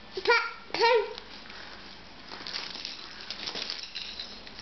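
A baby gives two short vocal cries close together near the start, then rustling and scuffling follow as she clambers out of a wicker basket onto stuffed toys.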